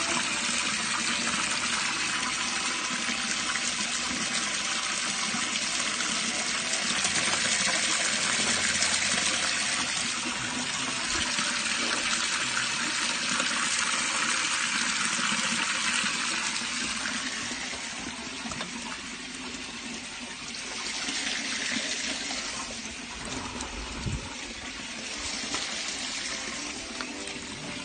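Waste water rushing through the open channel of a drain inspection chamber while the taps run and the toilet is flushed: the wet-wipe and grease blockage has cleared and the drain is flowing. The rush eases after about 16 seconds, then swells up twice.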